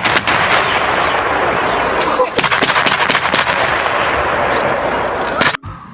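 Toy tank's electronic battle sound effect: rapid gunfire, then a long, loud rush of explosion-like noise with scattered shots, cutting off suddenly near the end.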